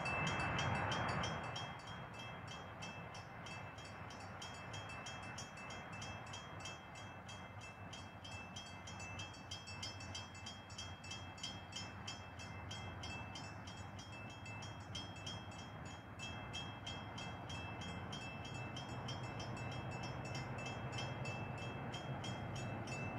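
Faint low rumble of an approaching train, growing slightly louder in the last few seconds. Over it runs a steady, fast-repeating high ticking tone.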